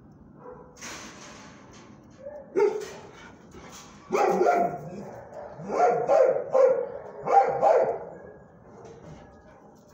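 Dog barking: one bark, then a run of about four loud barks a few seconds later.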